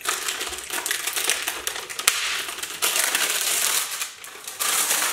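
Packaging crinkling and rustling steadily as air cleaner parts are unwrapped by hand, with one sharp tap about two seconds in and a short lull near the end.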